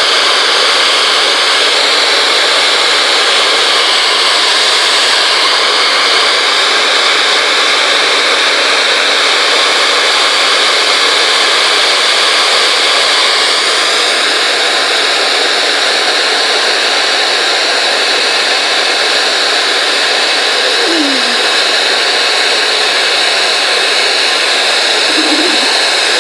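Handheld hair dryer running steadily, blowing a constant rush of air. Its sound shifts a little about halfway through.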